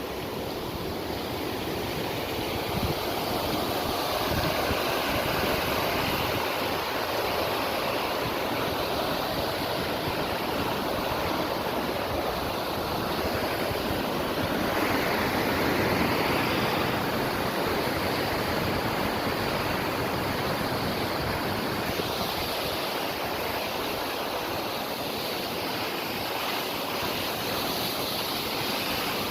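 Steady rush of flowing water, even and unbroken, with wind buffeting the microphone in low flutters.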